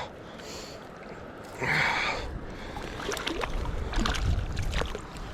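Water splashing: one loud splash about two seconds in, then a run of smaller splashes, over wind rumbling on the microphone.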